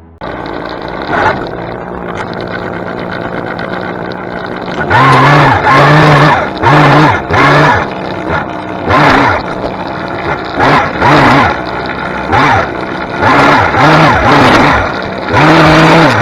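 Small gas engine of a handheld tree-trimming power tool running, then revved up and down over and over from about five seconds in, each burst of throttle rising and falling in pitch as it cuts.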